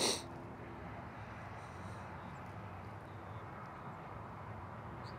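Quiet outdoor background with a steady low hum, and a brief soft noise right at the start.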